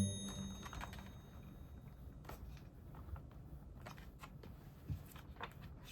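Faint, scattered light clicks and taps of hands handling the plastic parts of a cyclone vacuum cleaner during disassembly, with a plucked music note fading out at the start.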